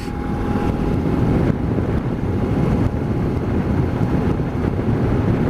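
Loud, steady wind rush and buffeting on the microphone of a motorcyclist riding at about 110 km/h out in the open airstream, unshielded by the windscreen. It drowns out the engine and tyre noise.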